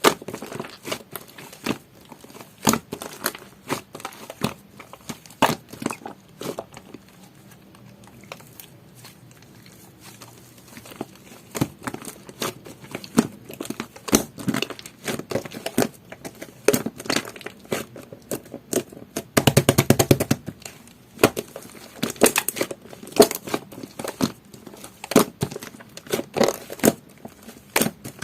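Jelly-textured slime being squished and poked by hand, making irregular sticky clicks and crackles. The handling goes quiet for a few seconds near the middle, and a dense run of rapid crackling comes about two-thirds of the way through.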